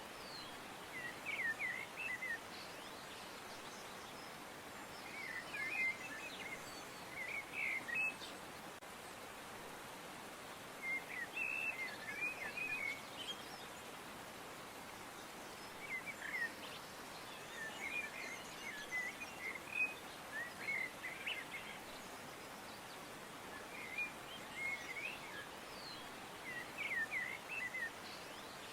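Birds chirping: short bursts of quick, high chirps that come every few seconds, over a steady background hiss.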